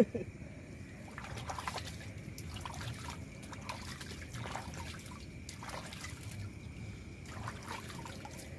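A sharp knock at the very start, then water trickling and splashing in short, irregular bursts.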